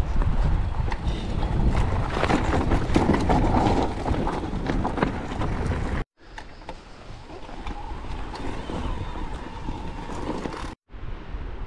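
Riding noise of a mountain e-bike going downhill on a rough trail: wind buffeting the camera microphone over a clatter of small knocks and rattles from the bike. The sound cuts out abruptly about six seconds in and again near the end, and is quieter after the first cut.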